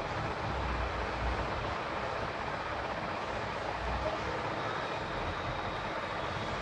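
Steady background noise, an even rushing hiss with a low rumble underneath and no distinct events.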